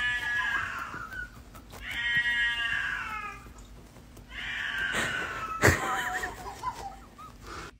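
A cat yowling: three long, drawn-out meows, each lasting a second or more, with a brief click during the last one.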